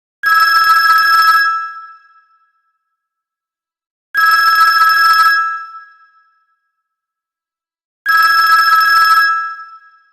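Alcatel OT-103 mobile phone ringtone: a buzzy two-tone telephone-style ring sounding three times, each ring a little over a second long, about four seconds apart.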